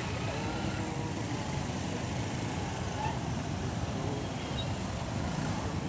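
Street traffic noise at a crowded junction: the small engines of many motorcycle taxis running amid general road noise, with faint voices in the background.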